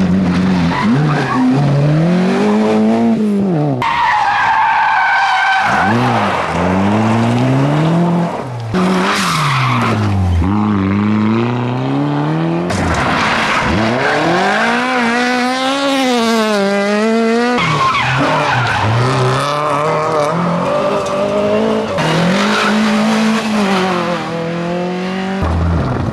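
Rally car engines revving hard as the cars pass one after another on a loose gravel stage, the pitch climbing and dropping again and again with throttle lifts and gear changes, over the noise of tyres sliding on gravel. The sound changes abruptly several times as one car gives way to the next.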